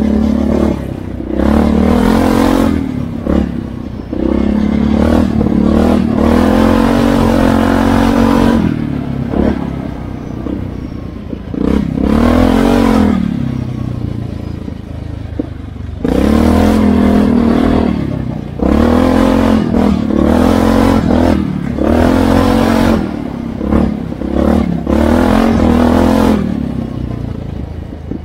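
ATV engine revving up and down in repeated throttle bursts as it is ridden, its pitch climbing and dropping again and again, with a couple of quieter stretches where it eases off.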